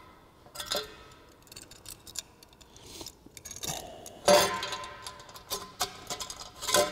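Aluminized steel exhaust tubing and clamps clinking and ringing as they are handled and slid together over slip joints. The knocks come irregularly, the loudest and most ringing about four seconds in and again near the end.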